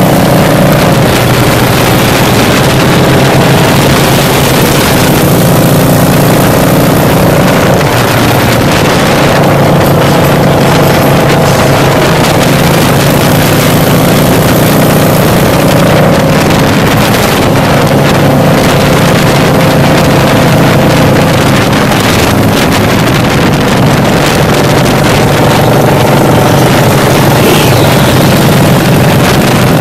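Engine running steadily at highway cruising speed, with heavy wind rushing over the microphone.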